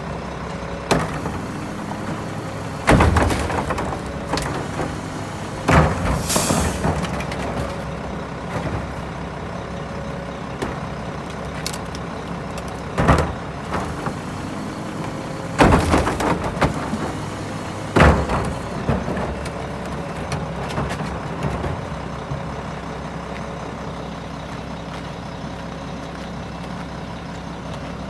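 Mack LE garbage truck's diesel engine idling steadily, with several loud knocks at uneven intervals as trash carts are tipped by hand and banged against the steel carry can on its forks. A short hiss of air comes about six seconds in.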